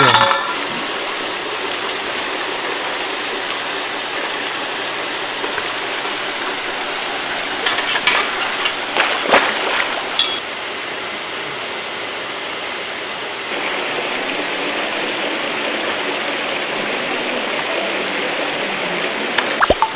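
Steady rushing and splashing of water churning into a fishing pond, with a few short clicks and splashes about eight to ten seconds in.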